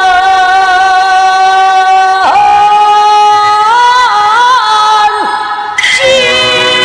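A woman singing a Peking opera aria in a high, full voice. She holds one long note that breaks off about two seconds in, then a second held note with small ornamental turns. After a short break a new phrase begins near the end.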